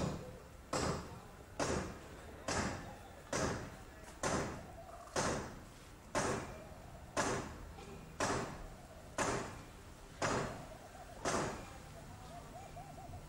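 Rhythmic chopping blows in the crown of a coconut palm: about a dozen sharp knocks, roughly one a second, each dying away quickly. They stop shortly before the end.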